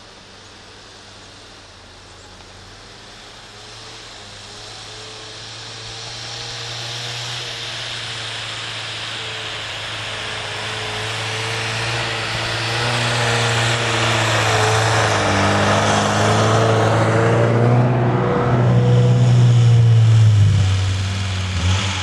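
Off-road SUVs driving slowly up a snow-covered track: their engines run at low, steady revs and their tyres hiss through the snow. The sound grows steadily louder as the lead SUV approaches, is loudest about eighteen to twenty seconds in as it passes close, then eases slightly as the next one comes up.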